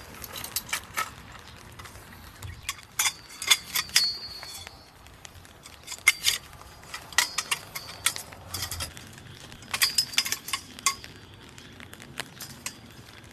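Jointed bamboo poles being handled and laid out: a string of irregular light knocks and clacks as the sections strike each other and the ground, some with a brief high clinking ring.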